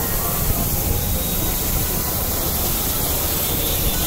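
Water jetting under high pressure from a burst water-supply main, a steady loud rushing hiss.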